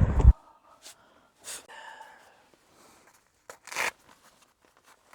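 Wind noise on the microphone cuts off suddenly in the first instant. After it comes a quiet enclosed space with a few soft rustles and clicks, a short breathy sound about two seconds in, and a louder rustle just before four seconds.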